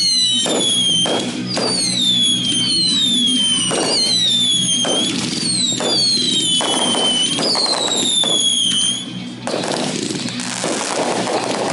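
Fireworks going off in a rapid volley: a dozen or so shrill whistles overlap, each falling in pitch over about a second, among sharp bangs. The whistles stop about nine seconds in, and dense crackling carries on.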